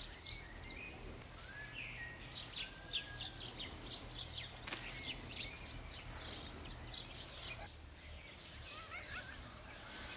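Small birds chirping and calling in many quick short notes. Underneath are a few sharp snaps and a soft rustle of garden herbs being picked by hand.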